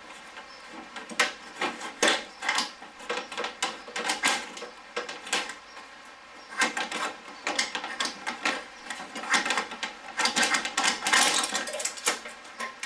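Hand work on parts in a car's engine bay: irregular clicks, knocks and rattles of metal and plastic being handled, coming in short clusters.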